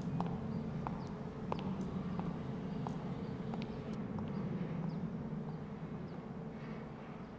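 Hard-soled shoes stepping along a concrete corridor floor, about one step every two-thirds of a second, growing fainter as the walker moves away, over a steady low hum.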